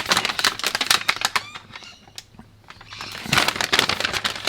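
Adhesive protective film crackling in quick, dense ticks as it is handled and pressed onto a bike frame, in two spells with a short lull between.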